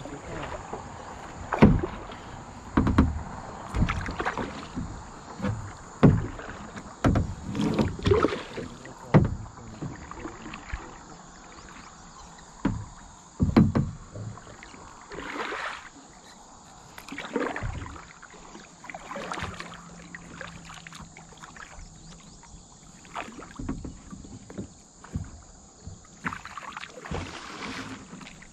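Double-bladed kayak paddle dipping and pulling through calm river water, with a splash at each stroke. The strokes come about once a second at first and are slower and more spaced out in the second half.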